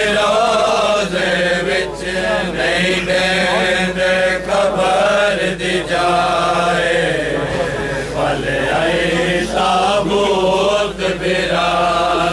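Men's voices chanting a Shia mourning chant, with a steady low hum underneath.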